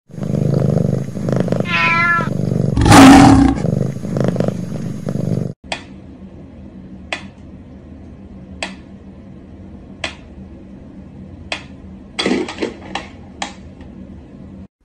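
A loud opening stretch with a wavering cry about two seconds in and a loud burst about three seconds in, then it cuts off suddenly. After that a mechanical pendulum metronome ticks slowly, single sharp ticks about a second and a half apart, with a quick run of clicks near the end.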